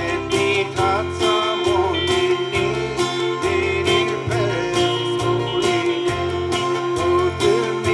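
Live gospel song: a man singing over a strummed acoustic-electric guitar, with held keyboard tones and a steady low bass line beneath.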